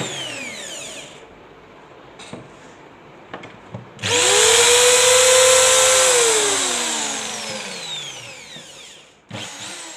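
Black & Decker hammer drill's motor blipped briefly at the start, its whine falling away. About four seconds in, the trigger is held: the motor runs up to speed, holds a steady high whine for about two seconds, then winds down over about three seconds once released. Another short blip comes near the end.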